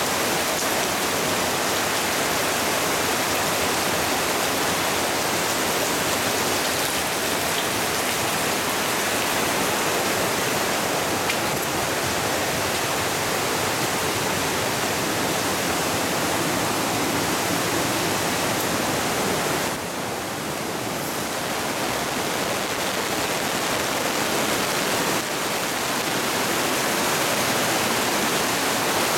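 Torrential rain pouring down, a steady dense rush of water that dips briefly about two-thirds of the way through.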